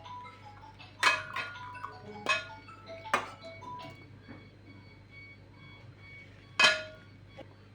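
Sharp clinks of kitchenware, glass or metal, each ringing briefly: a cluster of four in the first three seconds and one louder clink near the end, over a low steady hum.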